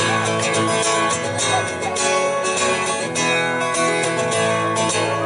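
Acoustic guitar strummed steadily in a country rhythm: the instrumental intro of a song.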